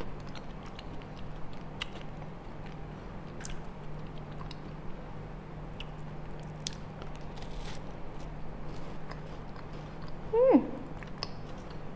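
A person chewing a bite of a dark chocolate KitKat wafer bar with their mouth closed, with faint scattered crunches of the wafer. There is a brief hum about ten seconds in.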